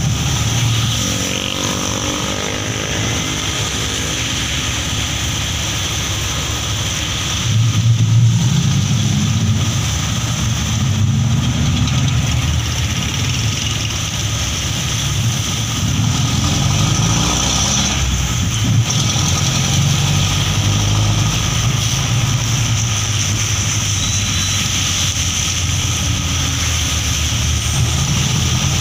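Engine of a moving passenger vehicle heard from its open-sided passenger compartment, running through traffic: it revs up about a second in and grows louder around eight seconds in. Steady tyre hiss on the rain-soaked road runs underneath.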